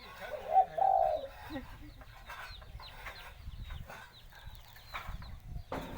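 A dove gives one cooing call about a second in, followed by faint, quick little chirps and a single knock near the end.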